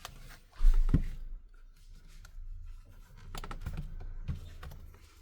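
Plastic pry tool working around the edge of a Samsung Galaxy Tab A T580's back cover: scattered clicks and light scrapes as the clipped-in plastic is forced apart, with a louder bump about a second in.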